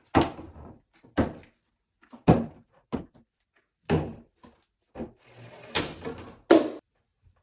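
Plastic drink bottles being flipped and landing on a wooden table, board and tray: a series of sharp knocks, roughly one a second, with quiet between them.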